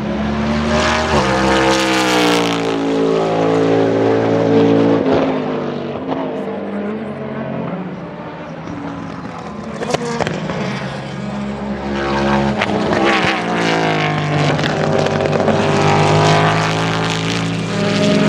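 NASCAR Cup Chevrolet Camaro ZL1's V8 racing engine accelerating hard past on track. The engine note climbs steadily for several seconds, drops away about five seconds in, then climbs again on a second long pull from about twelve seconds in.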